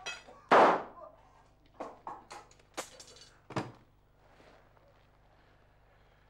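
One loud gunshot from a rifle fired into the air, with a short ringing tail, followed over the next couple of seconds by a run of short, sharp knocks and clatters.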